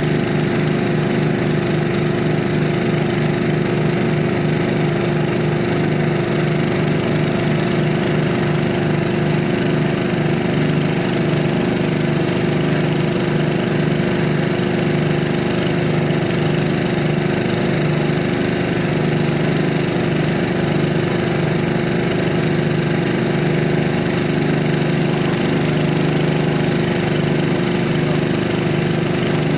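Small engine running steadily at one constant speed, with a fast, even pulsing drone and no change in pitch.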